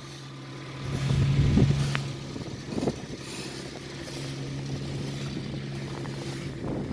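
Car engine idling with a steady low hum. A few brief louder noisy swells come over it, one about a second and a half in and one near three seconds.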